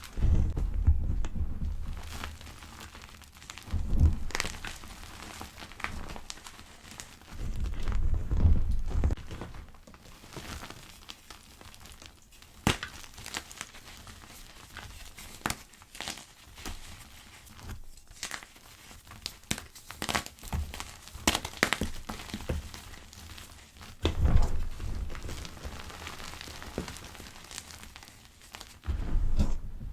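Gym chalk pebbles being crushed: a run of soft crackles and sharp little snaps as the chalk breaks apart. Several heavier, deeper presses come and go, including one near the start, one about 8 seconds in, and one near the end.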